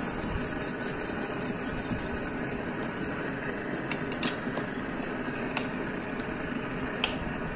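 Ground black pepper shaken from a shaker into a pan in quick taps, about five a second, stopping about 2 s in; then a wooden spoon stirring a thick tomato-sauce stew, with a few sharp knocks against the pan. A steady hum runs underneath.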